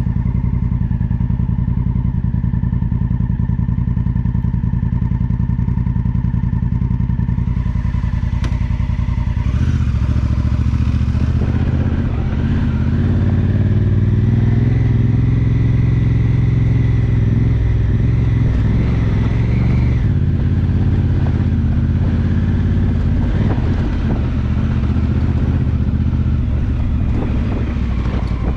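Honda Africa Twin's parallel-twin engine idling steadily, then about a third of the way in pulling away and running louder under load along a dirt track, its pitch rising and falling as it rides.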